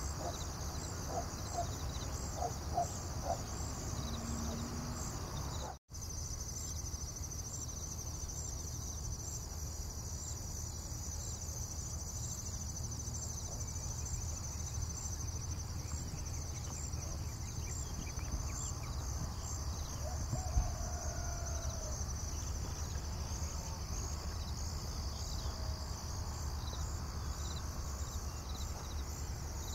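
Steady high chirring of insects with a regular pulse, over a constant low rumble, with a few short bird chirps in the first few seconds. The sound cuts out for an instant about six seconds in.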